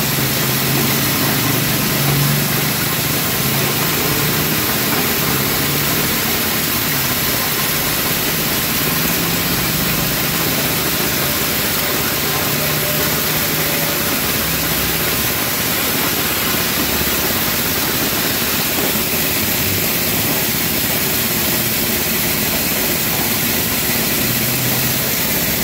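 Engine-driven dry coffee huller with a blower fan running steadily: a dense, even mechanical din with a low hum underneath.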